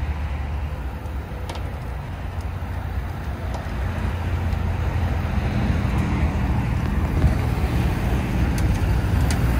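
Ford Super Duty pickup's engine running at low speed as the truck creeps up the trailer's loading ramps, a steady low rumble that grows a little louder about halfway through.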